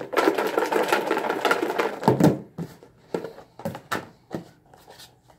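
Folded paper slips rattling inside a plastic food container with a snap-on lid as it is shaken hard for about two seconds to mix the names for a draw, followed by a few separate clicks and knocks as the container is handled on the table.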